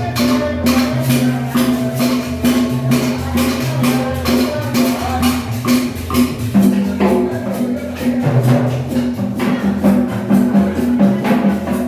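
Latin dance music with a steady beat, a bass line and shaker and tambourine-like percussion.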